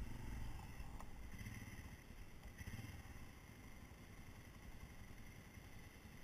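A faint small dirt bike engine running at low speed, a little louder in the first second or two and then steady and low.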